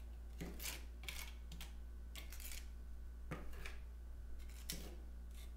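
Quick-dry mortar being spread on a tiled wall with a flat trowel blade: about half a dozen short, irregular scrapes of steel on wet mortar and tile.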